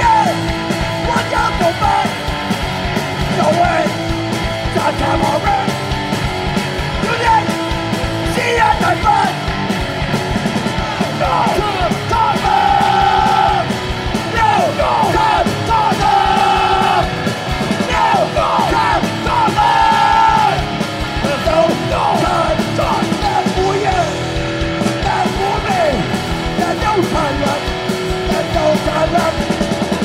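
Hardcore punk band playing live: loud, fast band music with shouted vocals over steadily hit drums.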